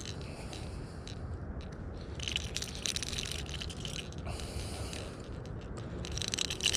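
Fishing reel clicking and rattling in quick runs as a bass is reeled in and landed, densest about two seconds in and again near the end.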